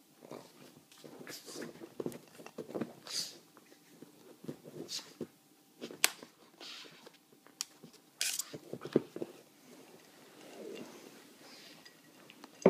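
Pug and kitten play-fighting on a fabric sofa: irregular scuffling and rustling of paws and bodies against the cushions, with a sharp click about six seconds in.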